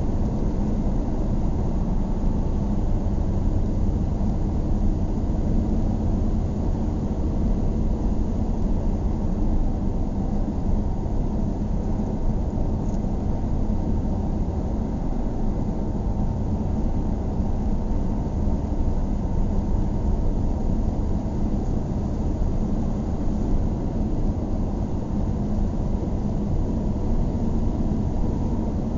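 Steady engine and road noise of a moving car, heard from inside the cabin, with a low hum and no sudden changes.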